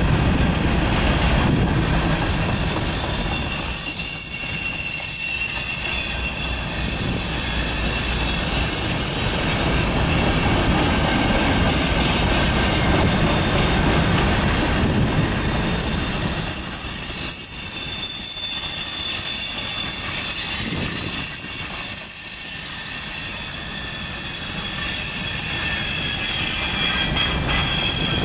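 Covered hopper cars of a Norfolk Southern grain train rolling past, a steady rumble of wheels on rail. Over it runs a high-pitched wheel squeal that wavers and drifts in pitch.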